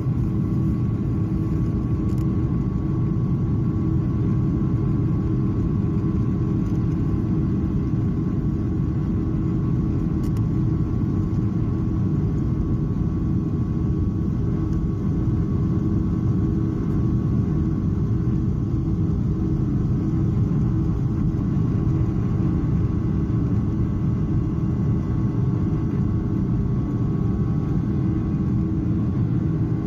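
Inside the cabin of a Boeing 737 airliner during its take-off roll: the jet engines run at take-off power with a steady low roar and a couple of steady whining tones, over the rumble of the wheels on the runway.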